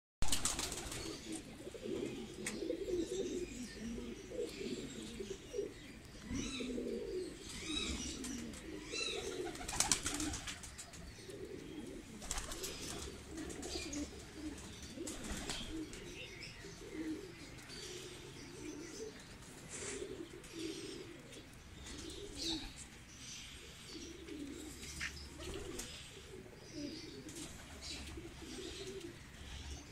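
Teddy pigeons cooing in a loft, low coos following one another throughout, with higher chirps now and then.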